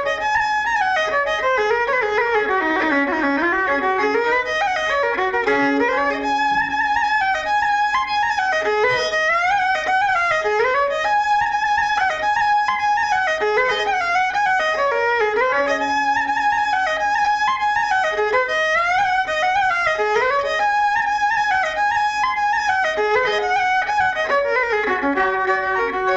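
Irish céilí dance music led by fiddle: a fast tune of quick running notes, its phrases repeating.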